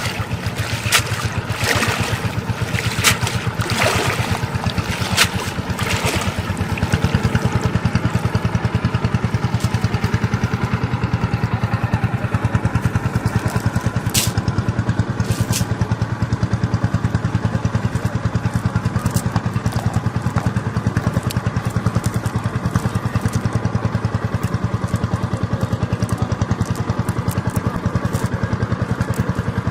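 A small engine running steadily with a fast, even chugging pulse. Several sharp knocks or splashes come in the first few seconds, and two short sharp clicks come about halfway through.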